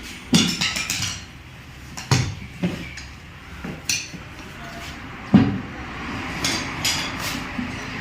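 Irregular sharp metallic knocks and clinks, like hand tools striking and clattering against metal, a few seconds apart with a quicker run of lighter clinks near the end.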